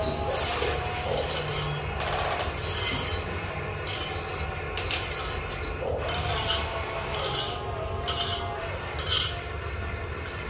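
Huina radio-controlled toy excavator's electric motors whining as the boom and bucket move, each whine rising in pitch and then holding, over a low hum, with the bucket scraping through sand.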